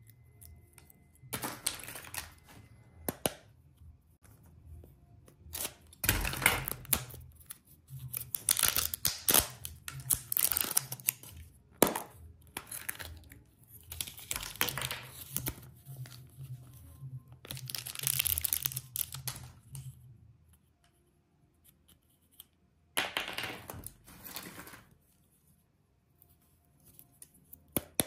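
Foil and plastic candy wrappers being torn and crinkled open by hand, in several bursts of rustling a second or a few seconds long with short pauses between.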